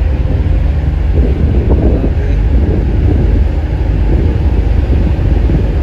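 Strong wind buffeting the microphone aboard a ferry at sea, a loud steady low rumble that flickers constantly, with no single distinct event.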